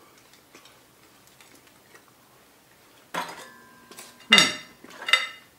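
Table knife clinking and scraping against a plate: near quiet with faint ticks at first, then a sharp clink with a brief ring about three seconds in and two loud scrapes near the end.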